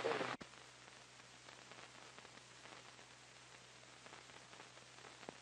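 Steady hiss with faint crackle and a low steady hum from an old film soundtrack, after a voice trails off in the first half second.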